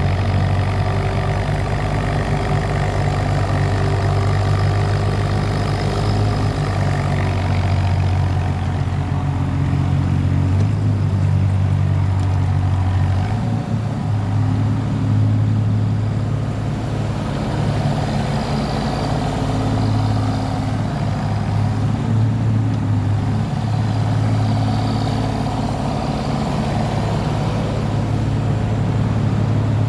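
Mitsubishi S3L three-cylinder diesel engine of a Mitsubishi MM30SR-3 mini excavator running steadily, its note shifting slightly about a dozen seconds in.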